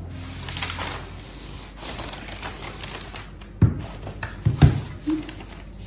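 Handling noise from a new MacBook Pro and its packaging: soft rustling, then two dull knocks a little past halfway, about a second apart, the second the louder, as the laptop is handled and set on the desk.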